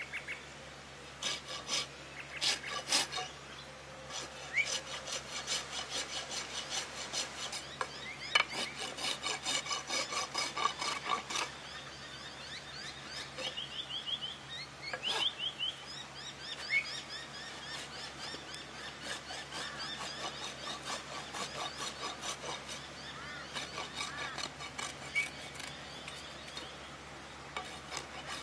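Hoof rasp filing a horse's hoof in repeated scraping strokes, about two a second, with short pauses between runs of strokes.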